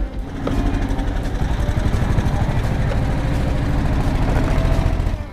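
Small wooden boat's engine running steadily, with a rapid low chugging.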